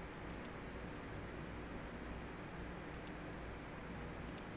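Three pairs of short computer mouse clicks over a steady faint hiss, as web pages are clicked through.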